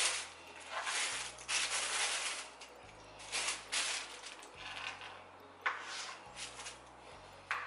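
Pawpaw being handled and sliced with a knife on a cutting board: spells of rustling and scraping through the first half, then a couple of sharp knife taps on the board later.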